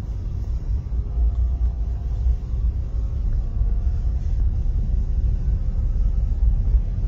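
Steady low rumble of a car driving slowly, its road and engine noise heard from the vehicle.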